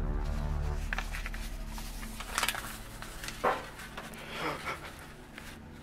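A dog whining softly a few times in short bursts about midway, over the fading tail of a low rumble and faint handling clicks.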